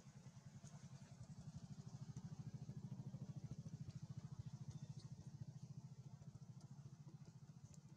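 Faint engine hum with a rapid, even pulse, swelling toward the middle and easing off near the end.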